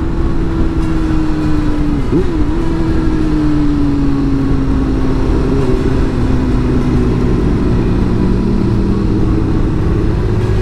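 Suzuki GSX-R600 K4's inline-four engine running under way, heard from the rider's seat over wind noise. Its note falls slowly as the bike slows, with a brief wobble in pitch about two seconds in, and starts to rise again near the end.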